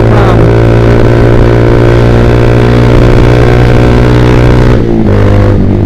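Yamaha Vixion's single-cylinder engine through a Proliner TR1 R aftermarket exhaust, running steadily under way. Near the end its pitch drops as the throttle is eased.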